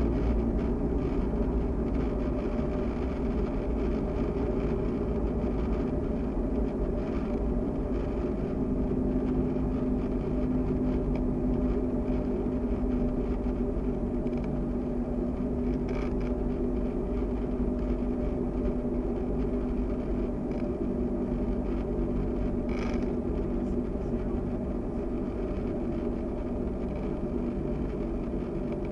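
Cessna 172SP's four-cylinder Lycoming IO-360 engine and propeller droning steadily, heard inside the cockpit on final approach, easing slightly near the end. Two brief clicks come about 16 and 23 seconds in.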